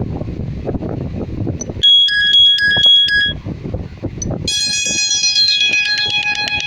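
Phone ringtones previewed one after another through the speaker of a Sony Xperia XA1 Ultra. A short chiming tune of a few notes plays about two seconds in. After a faint click, a second, brighter ringtone melody with descending notes starts about four and a half seconds in. A low rumble of background noise runs underneath.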